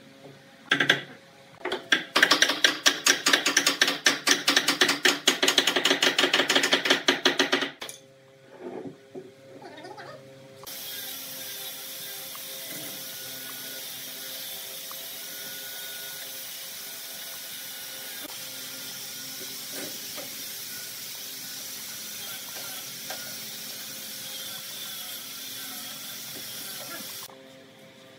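Steel bar clamps being worked onto a wooden chair frame: a single knock, then a fast, even run of ratcheting clicks for about six seconds, and a few small knocks. A steady hiss then starts suddenly and runs until it cuts off near the end.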